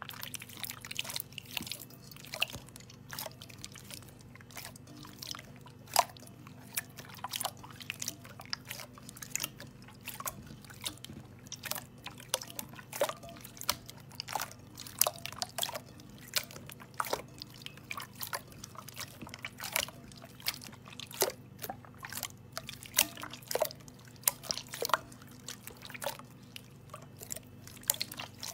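Slime being squished and worked by hand: a steady run of irregular wet clicks and small pops, several a second, over a faint low hum.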